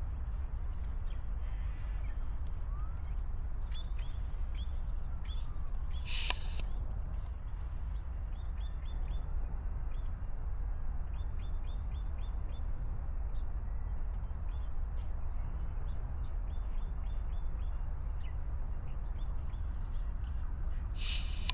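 Wild birds calling: many short, high chirps, some in quick runs, with two louder, harsher calls, one about six seconds in and one near the end, over a steady low rumble.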